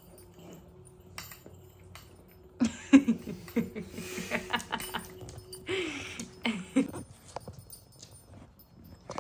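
A basenji nosing and pushing a plastic wobble treat-dispenser toy across a wooden floor, with light clicks and rattling of the food inside. From about three to seven seconds in, the loudest part is a quick run of short vocal sounds, about five a second.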